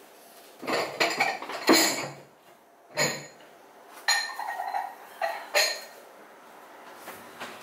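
Dishes clinking and clattering in several short bursts as serving bowls are taken out and handled, with one brief ring from a bowl about four seconds in.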